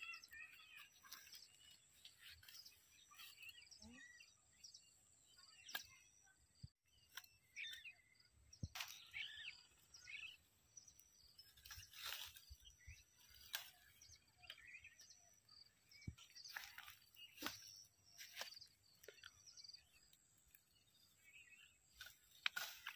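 Faint birds chirping here and there, with scattered soft snaps and rustles of wild plants being picked by hand.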